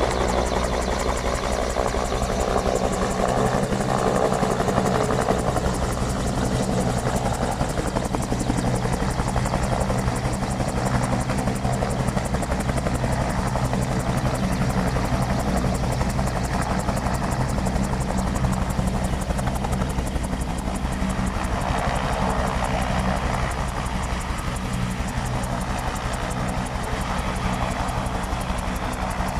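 Bell 222 twin-turbine helicopter setting down and running on the sand, its main rotor and turbines making a steady, loud sound throughout.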